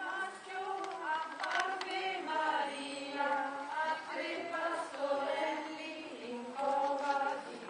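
A group of voices singing a Marian hymn in unison, unaccompanied, in a steady melody of held notes.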